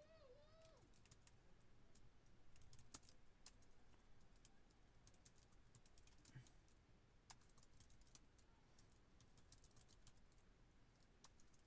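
Faint computer keyboard typing: irregular keystroke clicks in short runs, entering a line of text.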